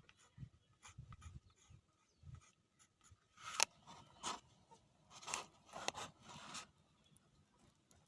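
Faint handwork noises from building a cardboard fan: scattered small clicks, then a handful of short scraping, crunching strokes in the middle.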